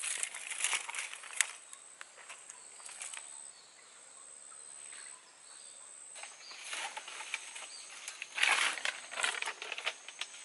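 Thin bamboo sticks clattering and knocking together as a bundle is handled, with a sharp click about a second and a half in. A steady high whine sits in the background, and later come bursts of rustling and crunching, loudest about two-thirds of the way through.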